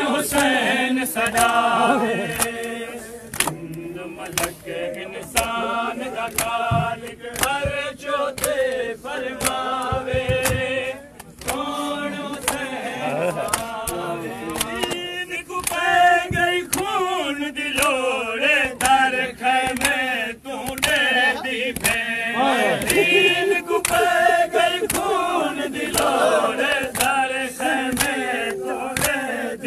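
Crowd of men chanting a noha, a Shia lament, together, over a steady beat of hands striking chests (matam).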